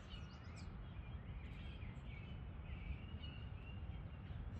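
Faint chirps and short calls of small birds, over a steady low rumble.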